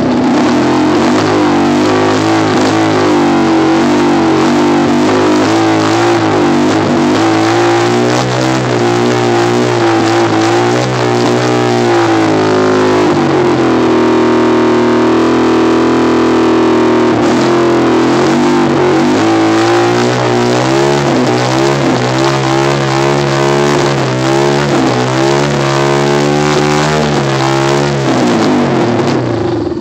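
1980 Yamaha SR250's single-cylinder four-stroke engine running just after a cold start. Its revs rise and fall unevenly, hold higher and steadier for a few seconds near the middle, then settle back into an uneven, wavering run.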